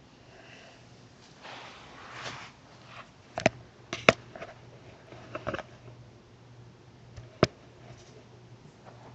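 Rustling, then several sharp knocks and taps close to the microphone, as a handheld camera is moved down to carpet level while a kitten plays with a toy. The knocks come in quick pairs a little over three and about four seconds in, with a lone loud knock at about seven and a half seconds.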